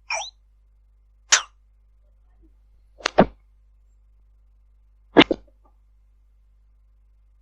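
Unexplained short noise bursts coming through a Viber call line, four of them at roughly two-second intervals, the later two doubled and loudest, with the line silent in between.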